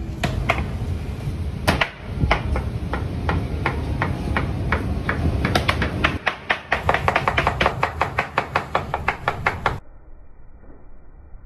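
Kitchen knife chopping through raw meat onto a cutting board: a run of sharp knocks, speeding up to about four or five strokes a second in the second half, stopping suddenly shortly before the end.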